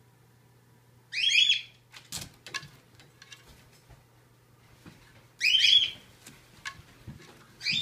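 Citron-crested cockatoo giving two short, shrill, whistle-like calls about four seconds apart, with faint clicks and rustling between them.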